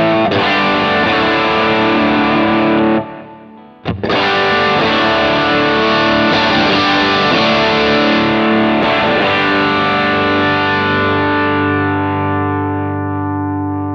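Distorted electric guitar played through a Kemper Profiler amp profile. The playing stops abruptly about three seconds in and picks up again a second later. It ends on a chord left ringing and slowly fading.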